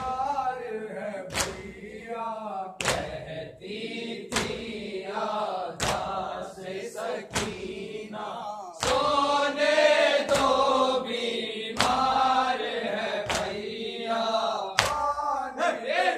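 Men's voices chanting a noha lament together, with a sharp slap about every one and a half seconds: hand-on-chest matam keeping the beat.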